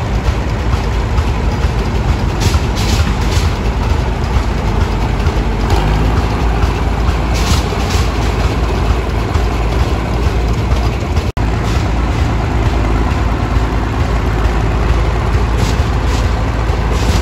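Heavy engines of vintage Caterpillar equipment, a rubber-tired wheel tractor and a crawler bulldozer, running as the machines drive slowly past: a steady, loud, low engine rumble. A few short, sharp high sounds come over it, at about 3 s, 8 s and 16 s.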